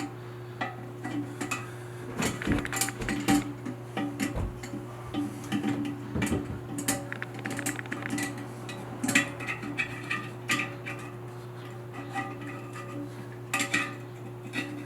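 Irregular clicks and clinks of pliers and plastic parts knocking against a porcelain toilet tank as the lock nut of a new fill valve is tightened.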